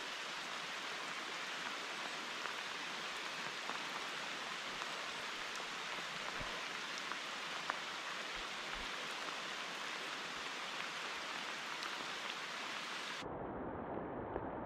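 Steady rain falling on a slow river's surface: an even hiss with scattered sharp drop ticks. Near the end the hiss turns abruptly duller.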